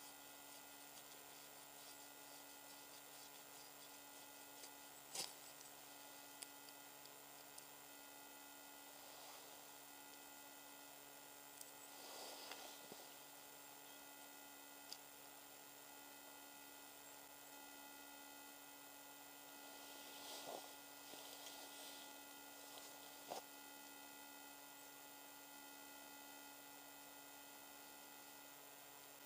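Near silence: a faint steady electrical hum, with a handful of faint scattered clicks.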